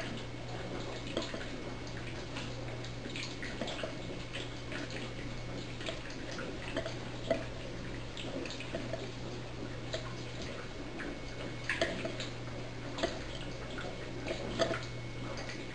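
HHO gas bubbling and gurgling through water in the bubbler, with irregular small pops and drips, over a steady low hum.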